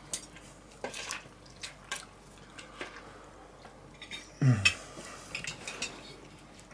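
Fork clinking and scraping on a plate as lasagne is eaten, a string of light separate clicks. A short man's vocal sound, falling in pitch, comes about four and a half seconds in.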